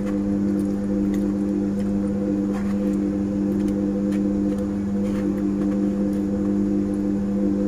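A steady machine hum holding a few fixed low tones, with faint scattered clicks and scrapes of a knife and fork cutting food on a plate.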